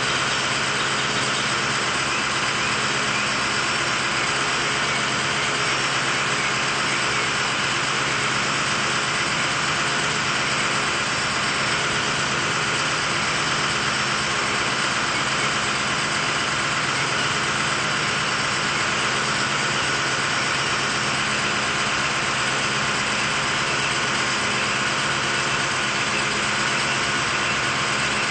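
An engine running steadily at an even speed for the whole stretch, with no revving.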